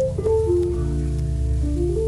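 Background instrumental music: a melody of held notes moving over a steady low bass.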